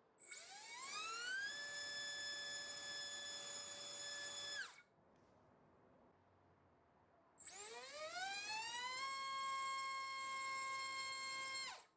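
BrotherHobby Tornado T1 1407-2800KV brushless motor on a thrust stand, run twice to full throttle with a propeller on: each time the whine rises steeply as it spools up over about a second, holds steady for about three seconds, then cuts off sharply. The second run, with a two-blade 4-inch propeller, reaches about 32,000 rpm on 16 V.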